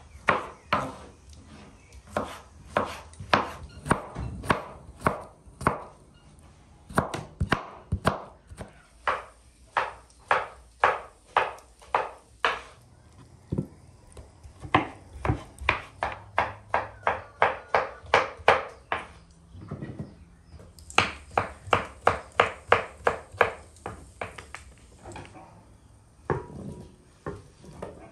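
Knife chopping food on a cutting board: quick, even strokes at about two to three a second, in runs broken by short pauses.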